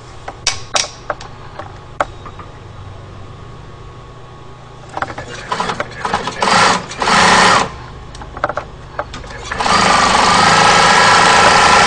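Bernina 950-class industrial sewing machine stitching a decorative design. It runs in short bursts about five seconds in, then runs steadily for the last two seconds. A few light clicks come near the start.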